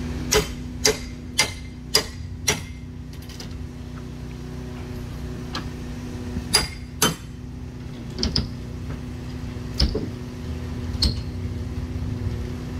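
Hammer blows on a wooden shed's framing being knocked apart: five quick strikes about half a second apart, then scattered single and paired blows, over a steady low hum.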